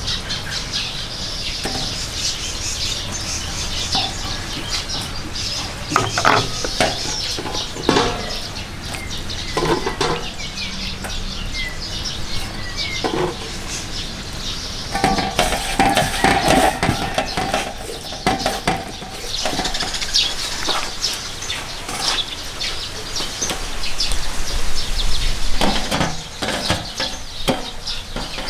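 Irregular clinks and knocks of cooking utensils and cookware being handled, with birds, including chickens, calling in the background.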